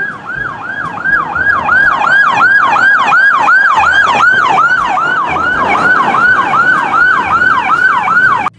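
Police car siren in a fast yelp: a loud, rapidly repeating wail that falls in pitch about three times a second, cutting off abruptly near the end.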